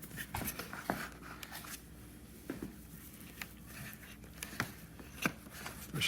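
Scattered small clicks and light rustling as a wire is handled and pressed down into plastic guide clips on a motorcycle's rear fender.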